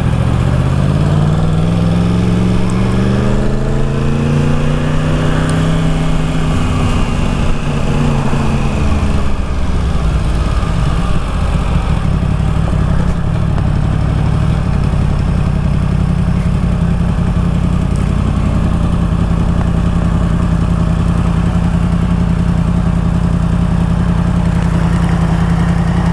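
Yamaha MT-10's crossplane inline-four running through an Akrapovic exhaust, heard from the saddle: it pulls up through the revs for about six seconds and eases back off, then holds a steady engine note.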